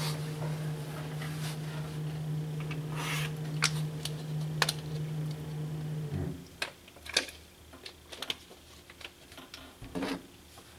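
A steady low hum that cuts off suddenly about six seconds in, with light clicks and taps scattered throughout.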